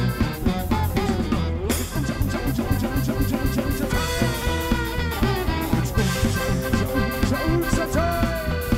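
Upbeat music with accordion over a drum kit keeping a steady beat.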